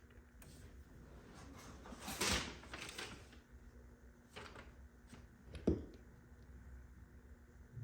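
Hands working a car's shift boot and shifter parts: rustling and scraping about two seconds in, a few light clicks, and a sharp knock near the six-second mark.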